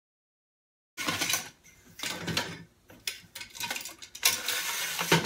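Fabric pipe sock rustling and scraping as it slides off an aluminium crossbar, with light clicks and knocks from the metal pipe being handled. The sound starts about a second in and comes in uneven bursts.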